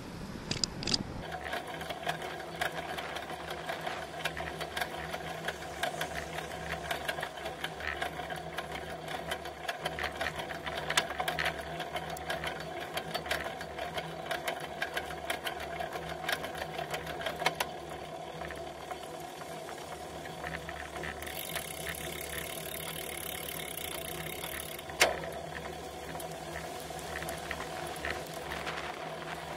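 Bicycle ride heard through a bike-mounted camera: a steady hum with fast, uneven ticking and rattling as road vibration shakes the camera and its mount. A hiss comes in high up for a few seconds about two-thirds in, and a single sharp click comes near the end.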